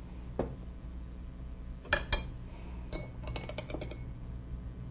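Glassware and bottles clinking against each other: a single clink early, a loud pair of clinks about two seconds in, then a quick run of small clinks.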